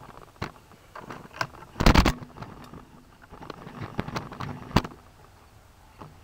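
Handling noise from a camera being moved and set into a new position: a series of knocks, scrapes and clatters, loudest in a burst about two seconds in, with another sharp knock near the end.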